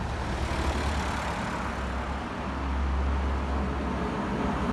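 Road traffic going by: a steady rumble of engine and tyre noise from passing vehicles.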